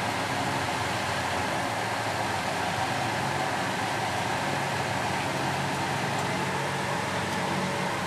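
Philips SL 202 front-loading washing machine spinning, a steady motor hum under an even rushing noise from the turning drum.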